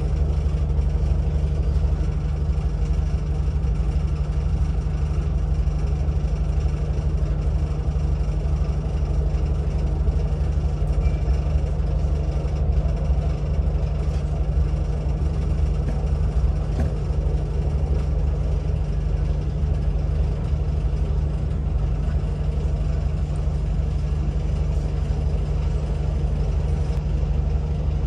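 A train's engine running steadily at idle: a constant low hum with no change in pitch, with a few faint clicks partway through.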